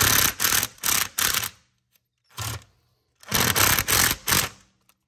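A power driver running a self-tapping screw into an aluminum mounting strip, rattling in three short bursts as the screw is run down tight.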